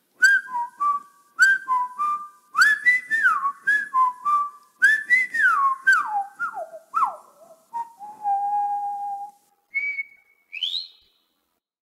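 A short tune whistled. It is a run of quick notes, several sliding downward in pitch, then a long held lower note, a short high note and a quick upward whistle near the end.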